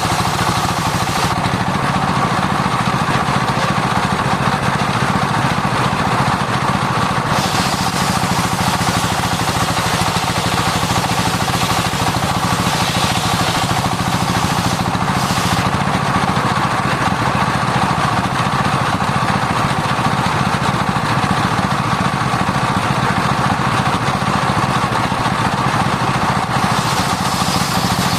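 A sawmill circular saw and the engine driving it run steadily while sawing sengon wood. The high hiss dims about a second in and again around seven seconds, comes up briefly about fifteen seconds in, and returns fully near the end.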